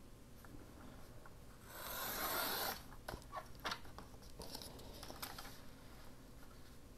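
Paper being handled on a desk: one rustle about a second long, then scattered light clicks and rustles.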